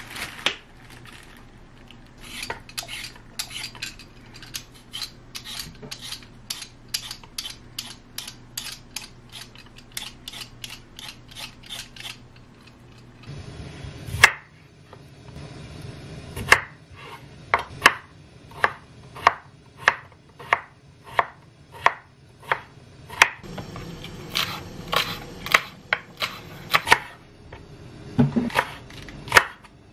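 Kitchen knife chopping vegetables on a wooden cutting board, a long run of sharp, regular strokes. The strokes come quickly at first, then slow to separate, louder cuts from about halfway on, as potato and green onion are cut.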